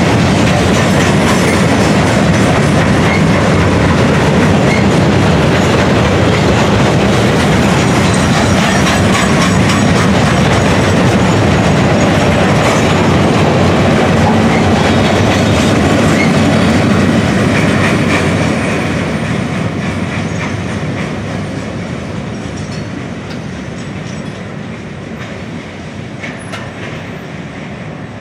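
Freight train of gondola cars rolling past, a steady rumble with wheels clattering over the rail joints. About two-thirds of the way through, the last car goes by and the sound fades away as the train recedes.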